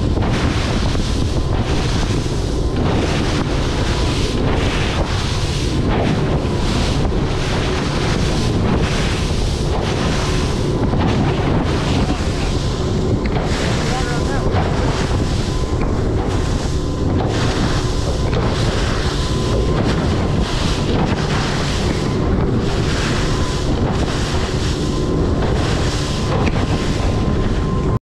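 Heavy wind buffeting the microphone on an aluminium boat running at speed through rough, choppy water, with spray and wave hits surging about once a second.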